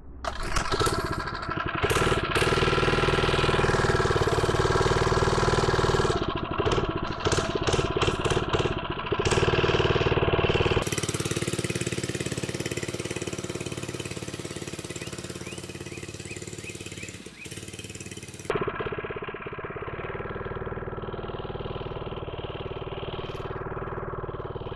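Small 79cc single-cylinder four-stroke engine on a mini bike running as it is ridden. It runs loud and close for the first ten seconds or so, then farther off and quieter. It is running rich with the choke half closed and barely comes off idle, a sign that its carburetor still needs sorting out.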